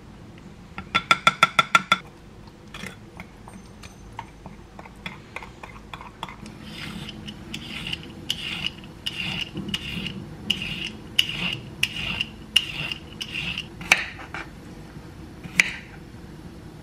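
A spoon taps a glass cup about eight times in quick succession, each tap ringing briefly. Then a peeler scrapes along a cucumber's skin in about a dozen even strokes, and near the end a knife cuts through the cucumber onto a wooden cutting board twice.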